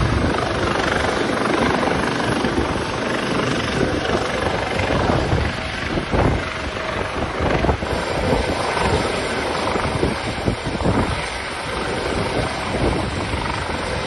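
Rotor and turbine noise of a US Coast Guard MH-65 Dolphin helicopter hovering close by, mixed with heavy wind buffeting on the microphone.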